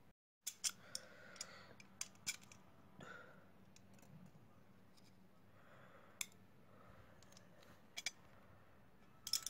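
Small repair tools clicking and tapping against a Vivo V3 smartphone's parts during a display replacement: faint, sharp clicks at uneven intervals, several in quick pairs, with light scraping in between.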